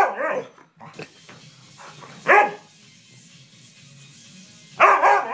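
A husky "talking" back in short, pitch-bending bark-howls: one at the start, one about two seconds in, and a third near the end. It is the complaining, attention-seeking vocalising of a dog demanding play.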